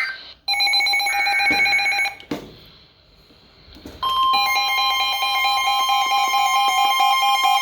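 Emergency Alert System tones. A steady electronic tone starts about half a second in and cuts off after about a second and a half, followed by a click and a short lull. About four seconds in, the EAS two-tone attention signal starts and holds steady, announcing an incoming National Weather Service severe thunderstorm warning.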